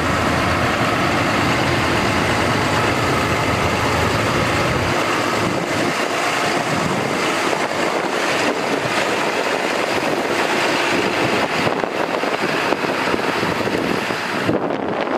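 Ford F750 bucket truck's Cummins 6.7L ISB diesel running steadily with the PTO engaged to drive the boom hydraulics. The deep low rumble drops away about five seconds in.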